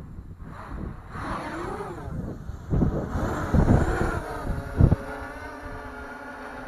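LisamRC Beetle 300 hexacopter's six brushless motors and propellers spooling up for takeoff. The whine rises and wavers as it lifts off, with heavy low rumbling on the microphone about 3 to 5 seconds in, then settles into a steadier hover whine.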